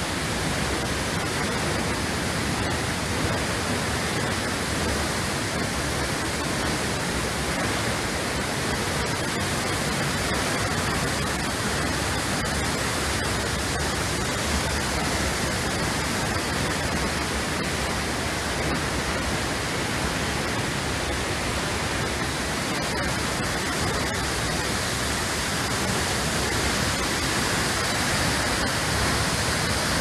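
Steady rush of a large waterfall: an even, unbroken hiss of falling water that grows slightly louder near the end.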